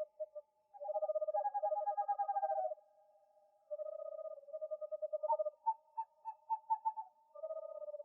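Owl calling in rapid trilled hoots: four runs of quick, evenly pulsed notes of a second or two each, the third run with a slightly higher, more spaced-out pattern. A faint steady tone runs underneath.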